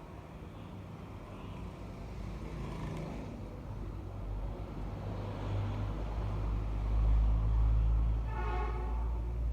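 A motor vehicle passing nearby: a low engine rumble swells for several seconds, peaks near the end and then eases. A short pitched sound rings briefly just before it fades.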